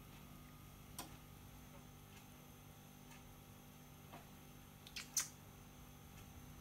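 Near quiet: a faint steady hum with a few scattered light clicks, the loudest a quick pair of ticks about five seconds in.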